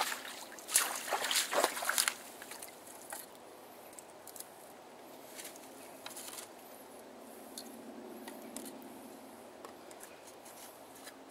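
Rubber boots splashing through a shallow creek for the first couple of seconds. After that, faint clicks and rustles of sticks and leaves being handled, over a steady low trickle of creek water.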